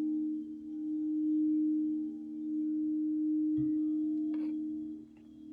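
Alchemy crystal singing bowls ringing: steady, low tones held together, swelling and fading in slow waves. A soft knock sounds about three and a half seconds in.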